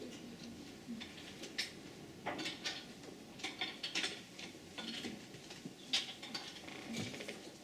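Scattered small clicks and clatters of a congregation handling communion cups, at irregular moments with no rhythm.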